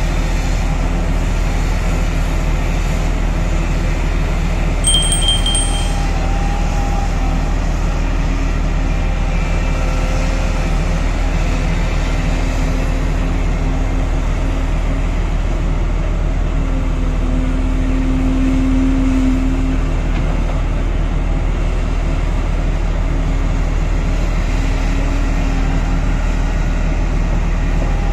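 Diesel engine of a Volvo EC950E crawler excavator running under load as it digs and loads a haul truck: a steady low drone whose tones shift as the machine works. A short high beep about five seconds in.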